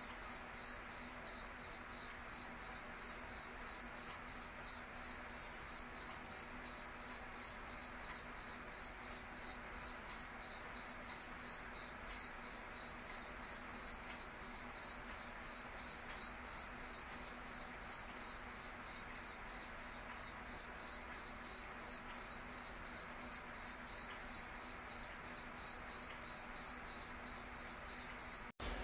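A cricket chirping in a steady, even rhythm of about three high-pitched chirps a second, broken by a very brief gap near the end.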